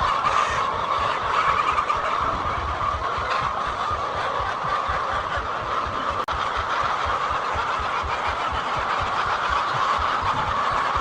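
A large flock of chickens in a poultry house, its many clucking voices blending into one steady din. The sound briefly drops out about six seconds in.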